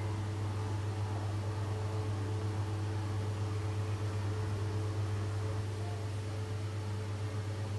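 Steady low electrical hum over a constant background hiss, unchanging throughout.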